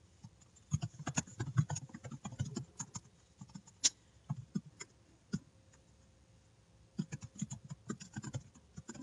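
Typing on a computer keyboard: a quick run of keystrokes, a few separate taps, a pause of about a second and a half, then another run of keystrokes near the end.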